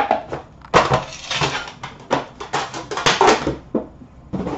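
Hands handling a trading-card tin and its packaging: irregular crinkling and rustling with quick clicks and small knocks, busiest from about a second in to past three seconds.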